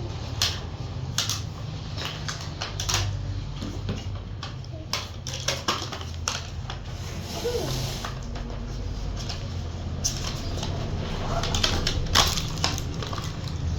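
Toy packaging being handled and opened: irregular clicks, taps and rustling.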